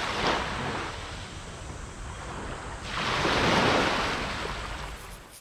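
Sea waves washing in, with wind buffeting the microphone. A surge comes just after the start and a bigger, longer one about three seconds in, and the sound cuts off abruptly near the end.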